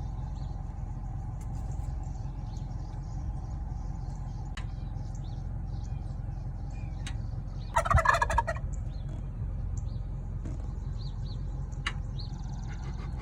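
A wild turkey tom gobbles once about eight seconds in: a short, rapid rattling call lasting under a second.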